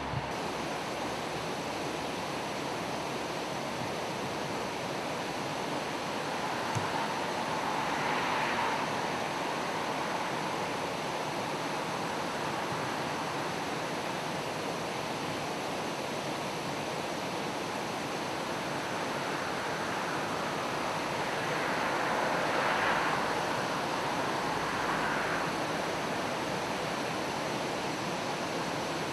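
Steady rushing of river water over small rapids, an even hiss with a couple of soft swells partway through.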